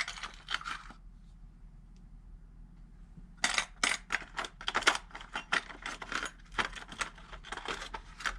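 Small metal TIG torch consumables clinking and rattling as they are handled: a short clatter at the start, then a longer run of dense clicks and rattles from about three and a half seconds in.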